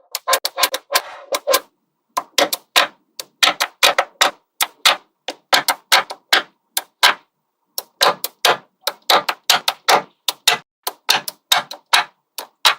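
Small magnetic balls clicking sharply as they snap onto one another, an irregular run of a few clicks a second with short pauses about two seconds in and again past the middle.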